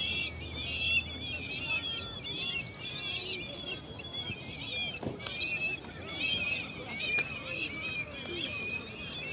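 A large flock of birds calling all at once, with many overlapping high chirps and twitters in a continuous chatter.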